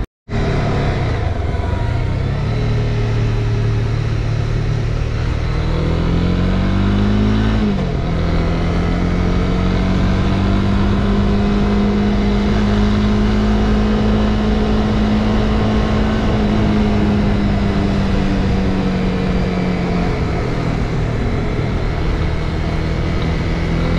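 Honda CB300R's single-cylinder engine riding along, with wind and road noise. About six seconds in the revs climb, then drop back at a gear change, and the engine holds a steady higher pitch until it eases off slightly near the end. The sound cuts out for a split second at the very start.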